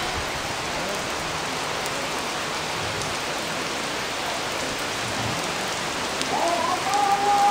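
Rainy-season rain falling steadily on wet concrete ground, an even hiss of rain. About six seconds in, a held musical tone comes in over it.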